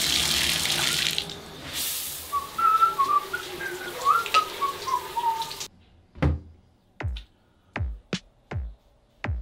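Shower spray hissing steadily while a man whistles a wavering tune over it. Both cut off suddenly just past halfway, and electronic music starts with a run of deep drum-machine kick hits.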